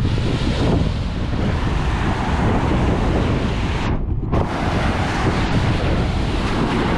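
Strong wind buffeting the microphone over ocean surf, briefly muffled about four seconds in.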